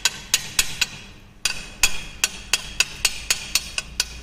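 Chipping hammer striking a fresh weld bead on 6 mm steel plate, knocking off the slag: sharp metallic taps with a short ring, about four a second, with a brief pause about a second in.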